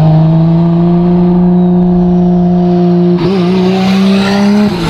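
Toyota Supra MK4's single-turbo 2JZ straight-six accelerating in second gear with only the downpipe fitted and no silencer, so it is running essentially open. The engine note climbs steadily, wavers briefly about three seconds in, and drops as the throttle closes near the end.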